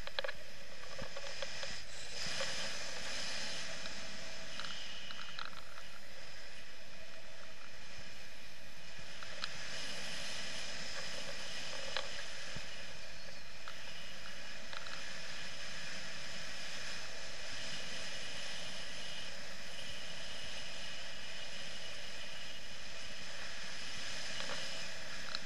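Steady rush of wind from the airflow over a paraglider pilot's camera in flight, with a few faint clicks.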